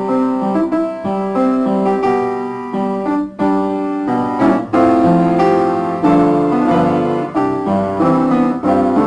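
Closing theme music played on piano: a run of struck notes and chords at a lively pace.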